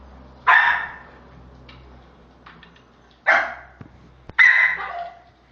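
A dog barking three times, about a second in, about three seconds in and near the end, the last bark longer than the others.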